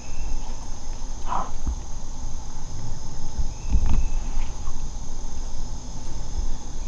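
Steady high-pitched drone of insects, with uneven low rumble on the microphone and a brief higher sound about a second and a half in.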